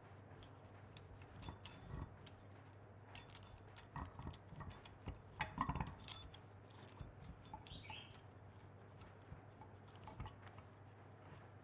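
Metal clicks, clinks and light knocks of a vise's threaded lead screw and handle bar being fitted and turned into the vise body by hand, loudest in a cluster about five to six seconds in, with a brief squeak near eight seconds.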